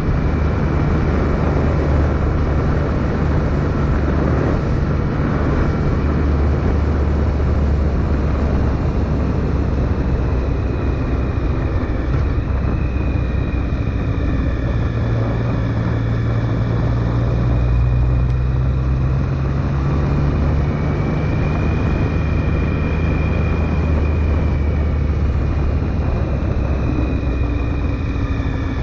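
Triumph Sprint GT motorcycle's three-cylinder engine running at a steady cruise, its note shifting a little about halfway through, under constant wind and road noise.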